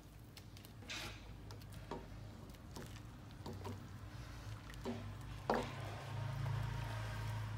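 A metal ladle scooping rice porridge from a stainless-steel pot and tipping it into a bowl, making several light knocks and clinks, the loudest about five and a half seconds in, with soft liquid sounds. A low steady hum runs underneath and grows louder from about six seconds in.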